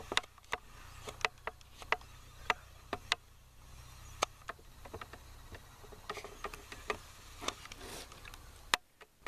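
Camera handling noise: irregular sharp clicks and ticks over a low steady hum while the camera is swung and zoomed, with one louder click near the end followed by a brief dropout.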